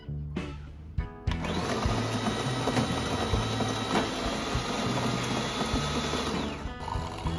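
De'Longhi bean-to-cup espresso machine's built-in grinder grinding coffee beans: a loud, steady whirring grind that starts sharply about a second in and cuts off near the end, over background music.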